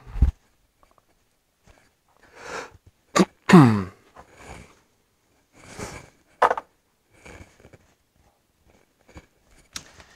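A single loud sneeze a few seconds in: a short breath in, then a burst that falls steeply in pitch. After it come a few faint rustles and knocks.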